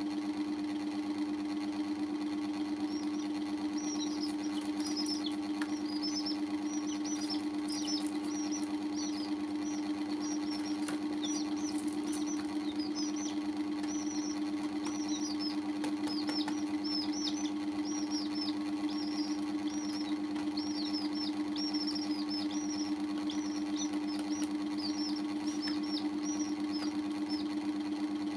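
Young chicks peeping: many short, high chirps that drop in pitch, scattered over a loud steady machine hum.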